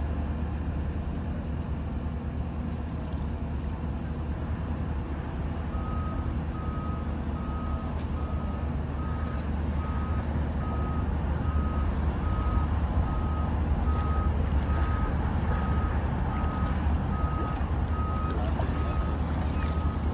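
A vehicle's reversing alarm beeps evenly, a little more than once a second, starting about six seconds in, over a steady low rumble of traffic. Near the end, water splashes and drips as a cast net is hauled out of the water.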